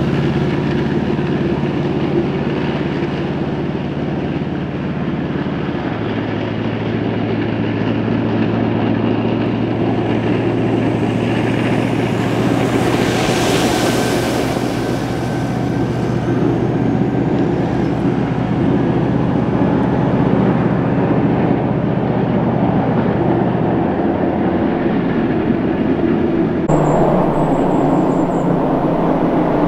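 Tracked CV90 infantry fighting vehicle's diesel engine and tracks running steadily as it drives off, the engine drone dropping slightly in pitch about six seconds in. Near the end the sound changes abruptly to an approaching Piranha 5 eight-wheeled armoured vehicle's engine.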